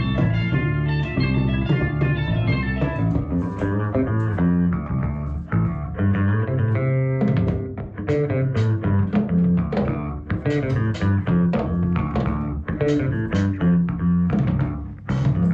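Guitar-and-bass music playing back through the original Klipschorn prototype corner-horn loudspeaker, driven by its push-pull tube amplifier, with plucked notes over a steady bass line.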